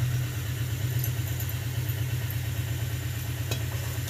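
Steady low machine hum. Near the end comes a light scrape of a wooden spatula spreading oil over a hot non-stick tawa.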